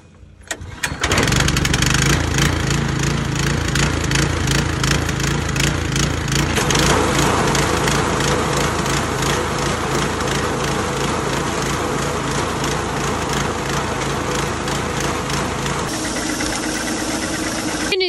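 Small petrol engine on a grain auger pull-started, catching about a second in, then running steadily to drive the auger filling a feed bin. The sound changes about two seconds before the end.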